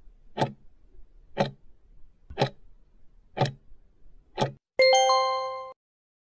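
Countdown timer sound effect: five clock ticks, one a second, then a bright chime that rings for about a second and cuts off suddenly, signalling that the answer time is up.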